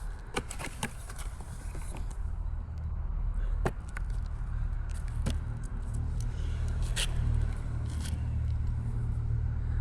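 New electric-skateboard wheels being unpacked by hand: scattered sharp clicks and short rustles of packaging, over a steady low rumble that grows louder a few seconds in.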